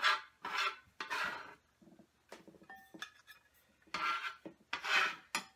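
Metal bench scraper scraping chopped onion across a wooden cutting board in several short strokes, with a pause of about two seconds in the middle.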